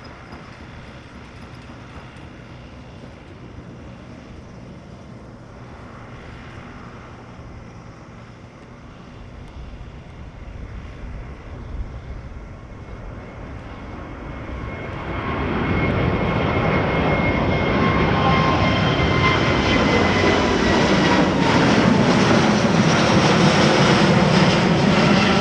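Boeing 787-10 jet airliner taking off: faint distant engine noise for the first dozen seconds or so, then the engines rise sharply about fifteen seconds in as the jet climbs out past, loud and steady, with whining tones falling in pitch near the end as it goes by.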